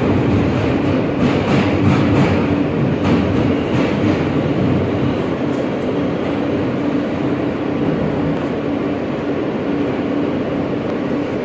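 Alstom R160A subway car running along the track, heard from inside the car: a steady rumble of wheels on rail under a constant hum, slightly louder in the first few seconds, with a few rail clacks.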